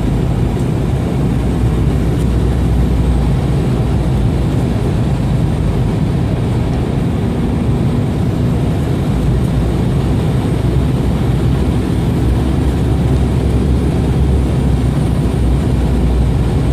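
Steady cabin noise inside an Embraer ERJ-195 airliner on final approach: its two General Electric CF34 turbofan engines and the rushing airflow, heaviest in the low end, with a faint steady high whine above.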